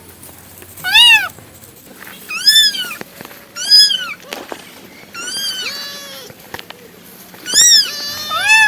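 Domestic cat meowing repeatedly, about six separate meows, each rising and then falling in pitch; one a little past the middle is lower and longer-drawn.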